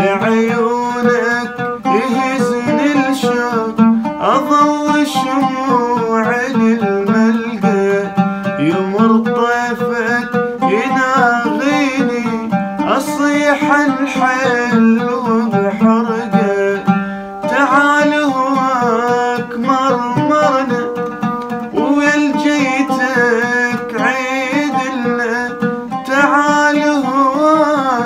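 Oud played with fast, rapidly repeated plectrum strokes, with a man singing drawn-out, bending notes over it.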